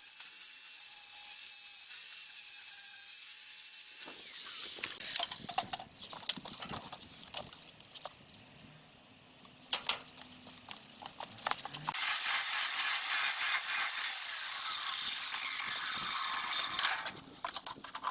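Crackling hiss of a 100 V arc welder laying a bead on steel, in two runs of several seconds each with scattered clicks and taps between them.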